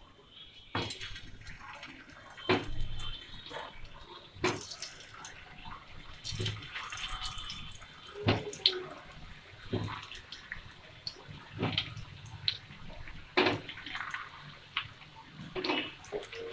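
Hot oil sizzling in a non-stick frying pan as boiled baby potatoes are put in to shallow-fry, with frequent sharp spits and pops.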